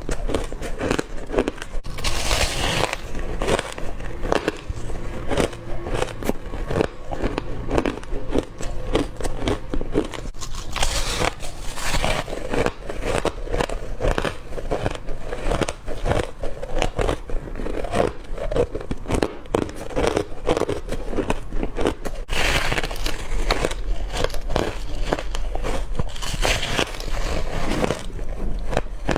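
Hard crushed ice being bitten and chewed, a continuous dense crunching and crackling with a few sharper, brighter bites spread through.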